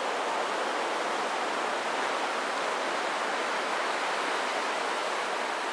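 Steady rushing noise of distant ocean surf, even and unbroken, with no separate waves standing out.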